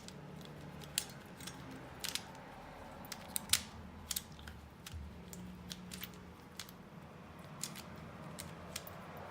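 Qiyi Qiming Pyraminx being scrambled by hand: its plastic layers and tips are turned, giving irregular light clicks and clacks.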